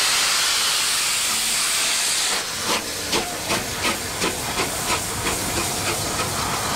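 Steam locomotive 34027 Taw Valley, a Bulleid West Country class pacific, letting off a loud steady hiss of steam; about two and a half seconds in the hiss drops away and a run of regular exhaust beats starts, about three a second and quickening slightly, as the engine works steam.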